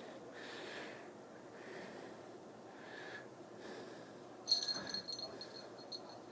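Faint breathing or sniffing close to the microphone, with a brief metallic jingle about four and a half seconds in from the object the cat is dragging.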